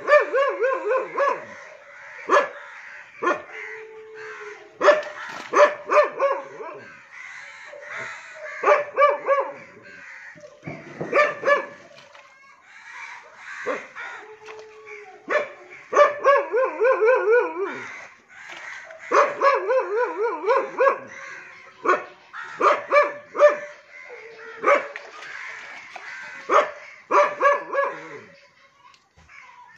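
A dog barking over and over in quick runs of barks, with short pauses between runs.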